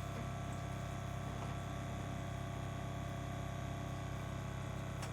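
Zacro battery-powered automatic ball pump running steadily, a constant motor hum as it inflates a ball toward its 11 psi automatic cut-off.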